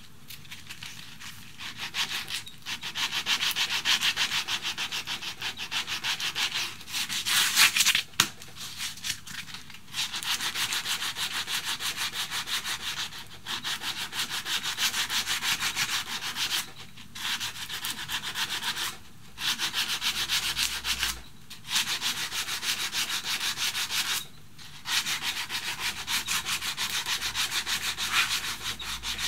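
Hand-sanding a carved wooden stick with sandpaper: rapid back-and-forth rasping strokes over the bare wood, in spells of a few seconds broken by short pauses.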